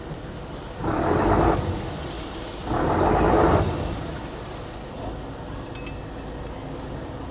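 A fishing boat's engine drone, with two loud rumbling surges about two seconds apart.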